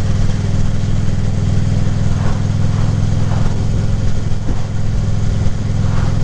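Harley-Davidson Ultra Classic Limited's V-twin engine running at a steady, even pitch while riding, with a continuous rush of wind and road noise.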